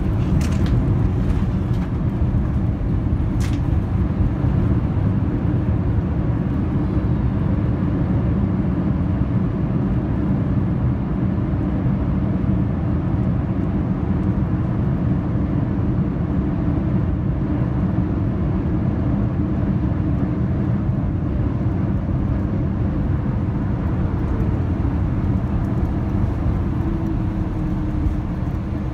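Boeing 787 landing rollout on a wet runway heard from the cabin: a loud, steady rumble of the engines in reverse thrust together with the wheels on the runway. Two sharp clicks come in the first few seconds, and a faint falling tone near the end marks the engines spooling down.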